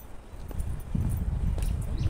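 Footsteps of a hiker walking down a trail, a few light knocks and scuffs, with a low rumble on the phone microphone that comes up about a second in.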